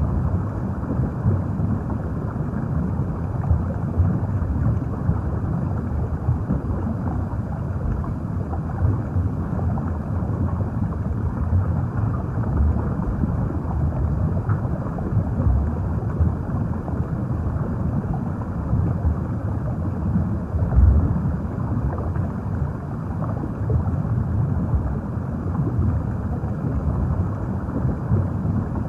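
Underwater ambience: a steady, muffled low rush and rumble of moving water that swells and surges slightly, with no high sounds.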